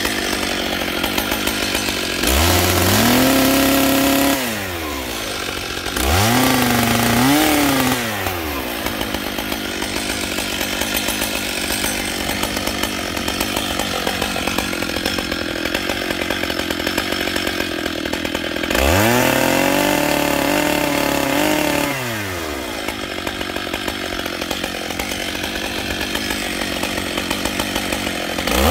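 Stihl MS880's big two-stroke chainsaw engine idling, then revved up to full throttle for about two seconds three times, falling back to idle in between, and revving up once more at the very end.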